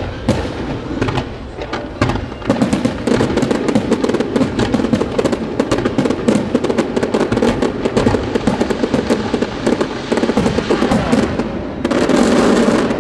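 Aerial fireworks barrage: a rapid, dense run of bangs and crackling from shells bursting overhead, thickening about two seconds in and swelling louder near the end.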